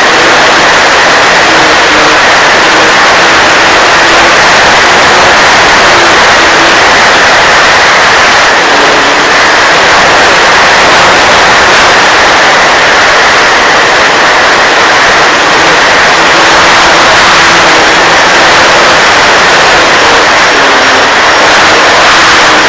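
Model airplane flying: a loud, steady rush of wind noise over the microphone, with the faint whine of its motor and propeller underneath, shifting up and down in pitch with the throttle.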